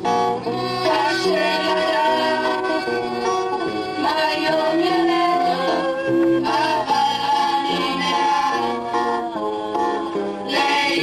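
Music: a song playing, with singing over instrumental backing.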